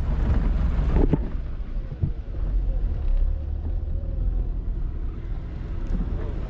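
Vehicle on the move: a steady low road and engine rumble with wind buffeting the microphone, and a short knock about a second in.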